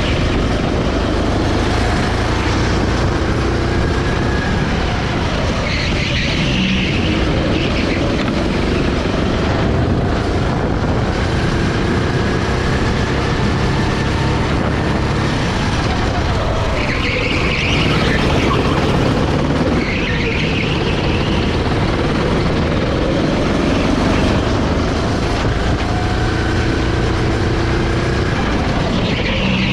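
Sodi SR5 rental kart's 390cc single-cylinder four-stroke engine running hard through a lap, its pitch repeatedly climbing as it accelerates and dropping as it slows for corners.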